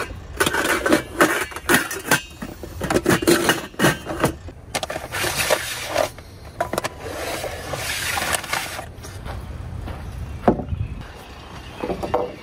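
Metal camping cookware clattering and clinking as a hand rummages through it in a plastic crate, followed by rustling as packages are pulled from a shelf, and a single sharp knock near the end.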